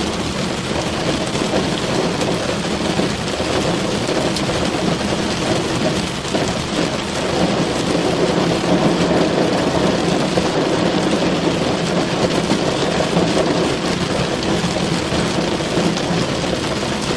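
Steady heavy rain drumming on a car's roof and windows, heard from inside the cabin, with a dense low patter that swells slightly about halfway through.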